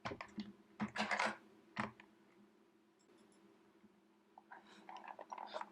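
Small hand tools clicking and scraping on a work surface during a tablet repair, a few sharp clicks in the first two seconds and softer scratching near the end, over a steady low hum.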